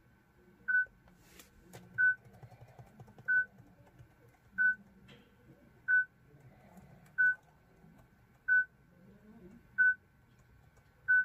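Warning beep from a Citroën fitted with another car's RD4 radio: a short single-pitch beep repeating evenly about every 1.3 seconds. It sounds because the radio comes from another car and has not been coded to this car's chassis number.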